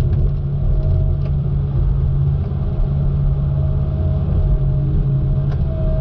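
Log loader's diesel engine running steadily under load, heard from inside the cab, with a whining tone that comes and goes as the grapple boom swings logs. A single knock comes near the end.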